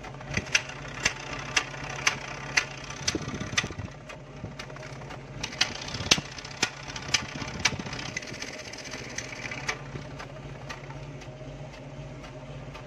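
Willys CJ3B jeep's Hurricane F-head four-cylinder petrol engine idling, heard close to its exhaust tailpipe: a steady low hum with sharp ticks about twice a second that fade out after about eight seconds.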